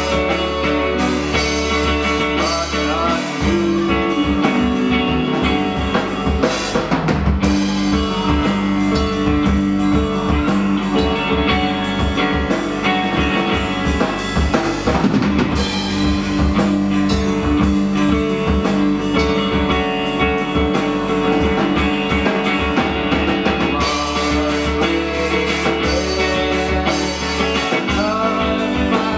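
Live math-rock band playing: electric guitar, bass guitar and a Pearl drum kit. A held low bass note sounds at the start and again near the end, with a fast, choppy rhythm from the drums and bass in between.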